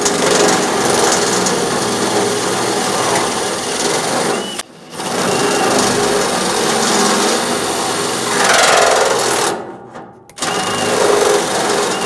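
Porter Cable cordless drill boring a hole through the sheet-metal cabinet of a table saw, the bit grinding through the steel. It runs in three bursts, each starting with a short rising motor whine, with brief stops about four and a half seconds in and about ten seconds in. The pitch sags just before the second stop as the bit bites.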